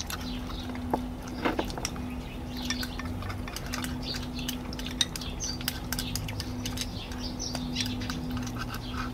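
Chopsticks and spoons clicking and tapping against small ceramic bowls as several people eat, in scattered light clinks. There are faint chirps in the background and a steady low hum underneath.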